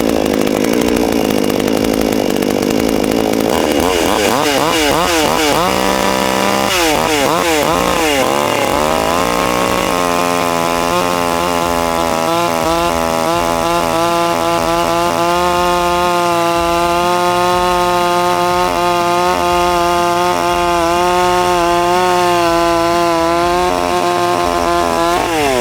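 Budget gas chainsaw's two-stroke engine running: a steady idle, then the throttle blipped up and down several times, then held at high revs for about fifteen seconds before the revs drop sharply at the end.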